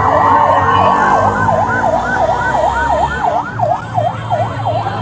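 Police car siren yelping: a fast warble rising and falling about four times a second, with a steadier siren tone alongside it for the first three seconds or so.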